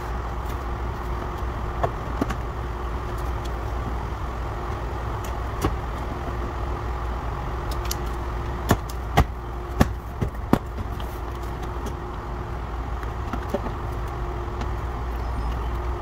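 Sharp clicks and snaps of the plastic retaining clips of a Toyota RAV4 door trim panel being pried loose, four in quick succession about nine to ten and a half seconds in, over a steady background hum.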